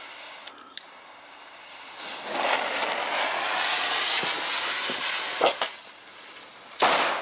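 Fuse of a Comet cube-shaped salute (Kanonenschlag) hissing for several seconds after lighting, with a few crackles, then the banger going off with a single sharp bang near the end.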